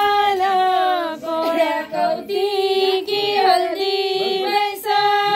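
A song with a high female singing voice holding long notes, some of them wavering, in phrases broken by short pauses.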